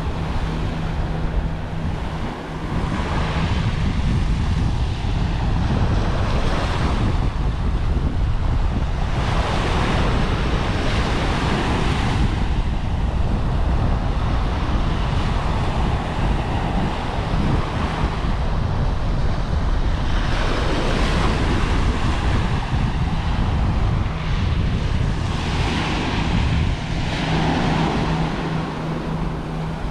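Small ocean waves breaking and washing up a sandy shore, the hiss of the surf swelling every few seconds, with wind buffeting the microphone throughout.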